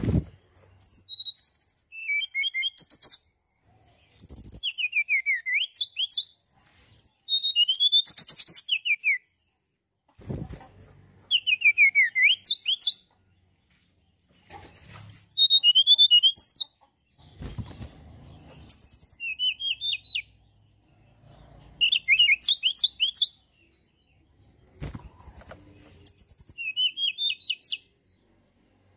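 Tledekan gunung singing: a run of short, fast phrases of high sliding whistles and trills, each about two seconds long with brief pauses between. A few faint dull bumps come between the phrases.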